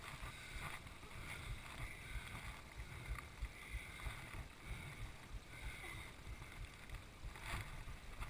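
Low, uneven wind rumble buffeting the GoPro's microphone, with faint rustling and one short scrape about seven and a half seconds in.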